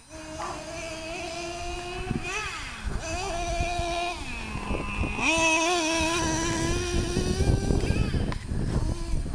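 Small two-stroke nitro engine of a Traxxas RC monster truck running at high revs with a high-pitched buzz, its pitch dropping and climbing again a couple of times as the throttle is eased and reopened.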